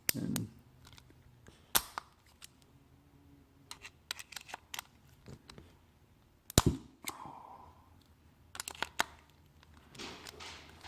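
Scattered sharp metallic clicks and taps of a flathead screwdriver working against a carburetor body to unscrew the pilot jet, with one louder knock about six and a half seconds in.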